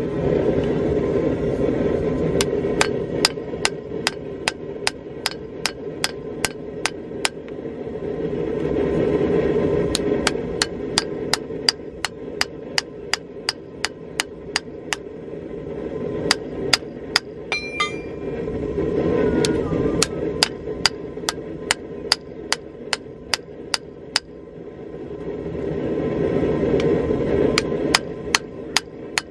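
Ball-peen hammer striking a red-hot railroad spike on a section of railroad rail used as an anvil, hand forging. The blows fall about two a second in runs of several seconds with short pauses between, over a low rushing noise that swells and fades.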